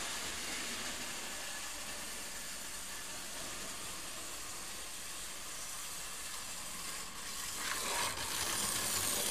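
OO gauge model train running on the track: a steady hissing running noise that grows louder near the end as the model Stephenson's Rocket and its carriages come through the points toward the camera.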